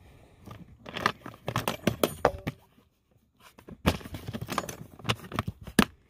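Plastic ammo cans being handled: a run of clicks and knocks as a lid latch is snapped and cans shift against each other, a short pause about halfway, then more clicking that ends in a sharp snap near the end.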